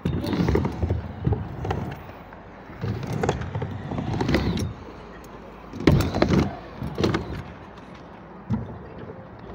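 Stunt scooter wheels rolling over skatepark ramps in several separate runs, each a second or two long, with a single sharp knock near the end.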